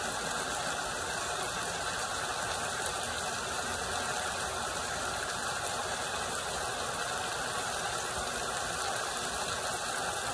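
Chicken pieces sizzling steadily in a skillet as their juices cook out. An even, unbroken hiss.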